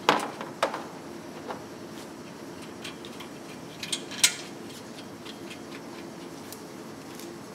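Stainless steel exhaust pipes and flanges clinking and knocking as they are fitted together by hand: a few sharp metal clinks, the loudest right at the start and about four seconds in, over a faint steady hum.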